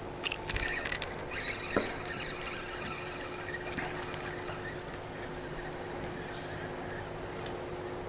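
Small, cheap spinning reel on an ultralight rod being cranked: quick mechanical clicking and whirring in the first two seconds, ending in one sharper click, then lighter ticking.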